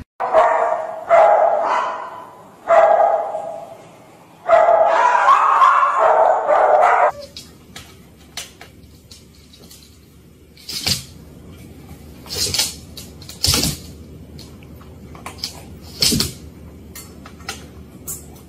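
A Great Dane giving three long howl-like calls over the first seven seconds. These are followed by several brief sharp sounds at a lower level.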